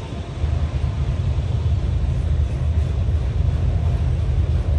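Autorack cars of a freight train rolling past, a steady low rumble of steel wheels on the rails that steps up in level just after the start.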